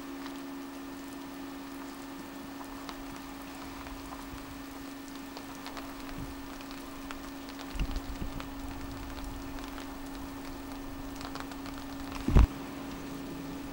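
Rain falling, with scattered drips ticking over a steady low hum. A few low knocks come about eight seconds in, and a sharp thump, the loudest sound, comes near the end.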